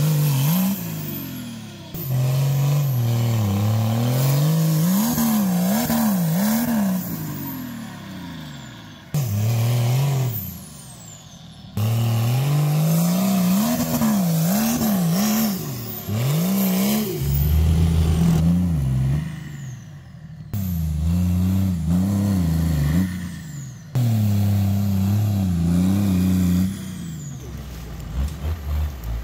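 Off-road tube-frame 4x4 buggy's engine revving hard under load as it climbs a steep slope. The revs rise and fall over and over in quick surges, and the sound cuts off abruptly several times.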